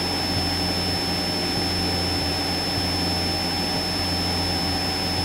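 Cessna 172SP's Lycoming IO-360 four-cylinder engine and propeller droning steadily in flight, heard inside the cabin, with a thin steady high whine over it.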